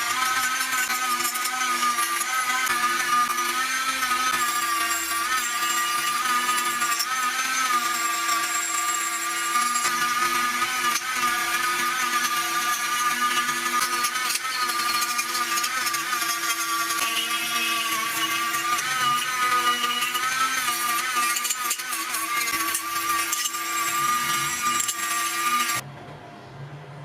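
A small electric power tool motor running steadily with a high whine, its pitch dipping and wavering slightly as it is pressed into the work. It stops abruptly near the end.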